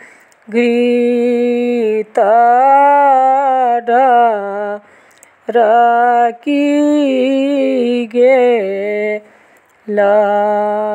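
A woman singing a Maithili upanayan (sacred-thread ceremony) folk song solo and unaccompanied: held, slowly bending notes in phrases of a second or two, with short pauses for breath between them.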